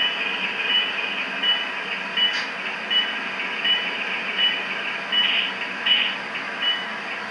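HO-scale BNSF diesel model locomotive running, with a steady running noise and a bell-like tone ringing evenly about every three-quarters of a second. Two brief louder bursts come about five and six seconds in.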